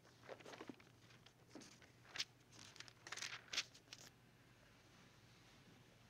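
Bible pages being turned: a run of short, papery rustles and crinkles over about four seconds, the loudest about two and three and a half seconds in.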